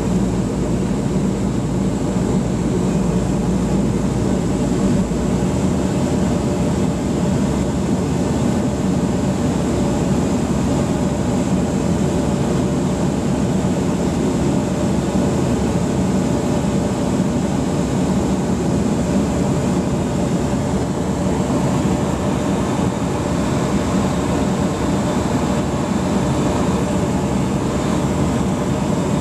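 Light aircraft's piston engine and propeller running steadily, heard inside the cockpit of an Evektor EV-97 Eurostar on approach to land.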